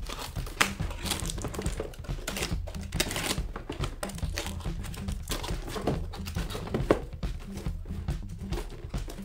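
Utility knife slitting packing tape on a cardboard box, with irregular scraping, clicking and crinkling of the tape being cut and peeled. Background music with a steady bass runs underneath.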